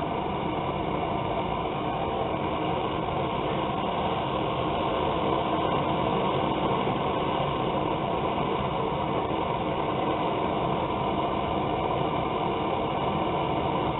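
Gas burner of a homemade coffee-can forge running steadily, a constant rushing noise, while a blade heats inside for hardening.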